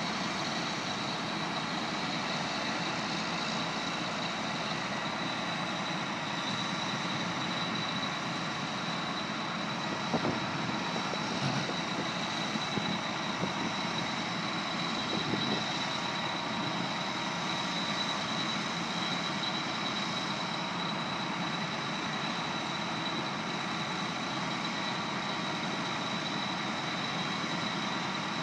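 Heavy diesel machinery running steadily as a high-dump cart's hydraulics raise its hopper over a semi-trailer, with a steady high whine and a few clunks about ten to fifteen seconds in.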